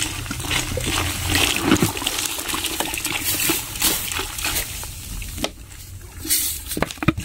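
Cola poured from a plastic bottle in a stream into a plastic tub, splashing into foaming cola and ice, with a few small knocks. The pouring eases briefly about five seconds in.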